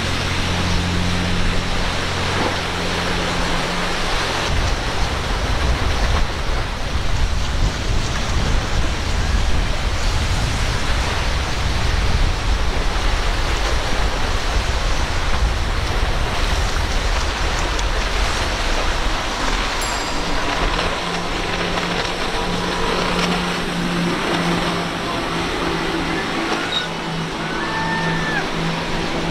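Powerboats running at speed through rough water. A steady engine drone plays for the first few seconds and returns from about 20 seconds in, over a loud rush of hull spray and water noise that dominates the middle stretch.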